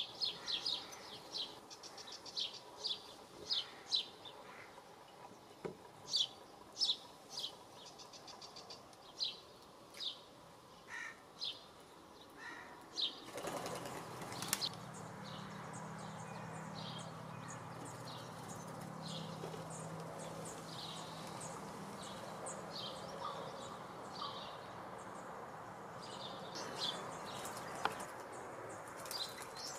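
Small birds calling at a pool: short, sharp, high chirps repeated about once or twice a second. About halfway through, the background changes to a steady hiss and low hum, and the calls become fainter and sparser.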